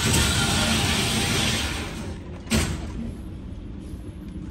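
Gunfire echoing in an indoor shooting range. The long ringing tail of a shot fades over the first two seconds, and a second sharp shot cracks about two and a half seconds in.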